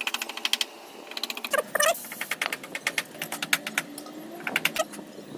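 Brake caliper parts being scrubbed clean by hand in several quick bursts of rapid scraping strokes, with a short squeak about two seconds in.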